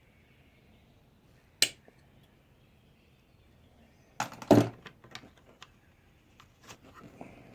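A sharp click, then a short clatter of clicks a few seconds later, the loudest part, followed by scattered lighter ticks: small tools and pieces being handled on a soldering bench.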